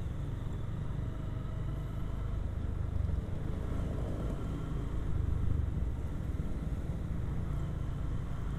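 Honda Verza 150 motorcycle being ridden, its single-cylinder engine running steadily under a heavy low rumble, with no sharp revving.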